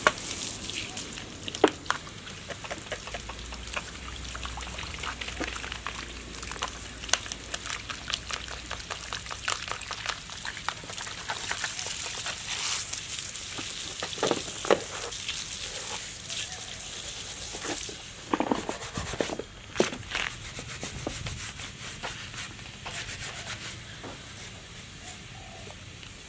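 Water from a garden hose splashing over a string trimmer and onto wet ground, a steady hiss of spray, with scattered clicks and knocks as the trimmer is handled and turned while it is washed.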